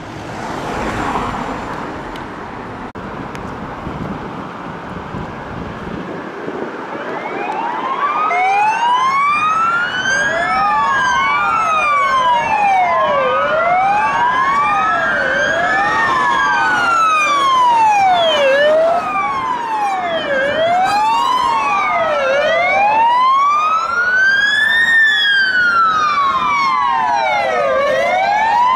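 A vehicle goes past quickly about a second in. From about seven seconds in, the sirens of several UK police cars in a convoy approach on the wail setting, each rising and falling slowly and overlapping out of step with the others, growing louder.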